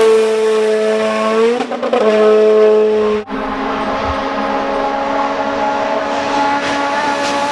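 Race-car engine sound with a high, steady drone held at one pitch. It breaks off briefly after about two seconds, then cuts out sharply a little past three seconds and comes back slightly higher and steady.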